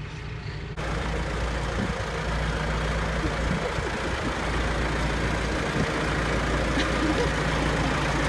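Farm tractor engine running steadily, a continuous low diesel-type hum.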